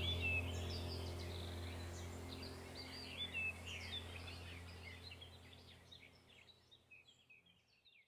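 Small songbirds chirping and twittering in quick short notes over a low steady hum, all fading out gradually.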